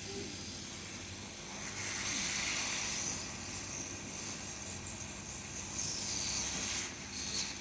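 Hot-air rework station blowing a steady hiss of hot air onto a phone motherboard to soften the solder, swelling louder twice.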